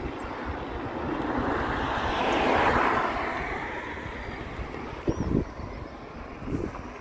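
A car passes the bicycle, its tyre and engine noise swelling to a peak about three seconds in and then falling in pitch as it pulls away. Wind noise is on the microphone, with a couple of short knocks about five seconds in.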